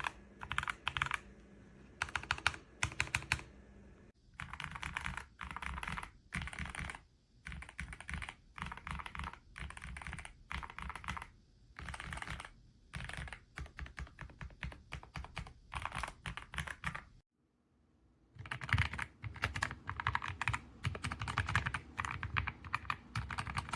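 Keystrokes on a mechanical number pad with Gateron Red linear switches and PBT keycaps, typed in quick bursts of clacks with short pauses between them. The typing stops for about a second and a half about two-thirds of the way through, then resumes.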